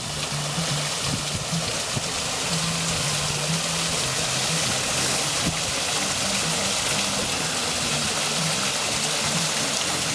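Water pouring steadily down an artificial stone waterfall, a continuous splashing rush. Low notes of background music move underneath.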